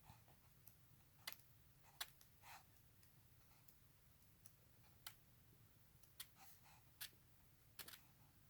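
Near silence broken by a few faint, sharp clicks at irregular intervals, from turning and handling the pages of a photobook.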